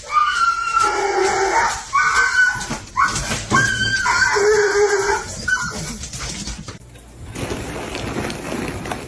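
A dog giving a run of about five drawn-out, wavering cries over the first five seconds or so, followed by quieter noise with no calls.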